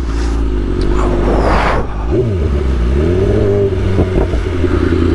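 BMW S1000RR inline-four sportbike engine running under way through an Akrapovic exhaust, its pitch dipping and climbing several times with throttle and gear changes. A rush of noise swells about a second in and fades before the two-second mark.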